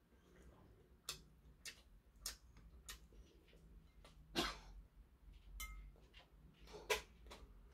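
Faint eating sounds: metal chopsticks clicking against a porcelain bowl as food is picked up, among quiet chewing and mouth clicks. Several short sharp clicks, one with a brief ring, the loudest about four and a half and seven seconds in.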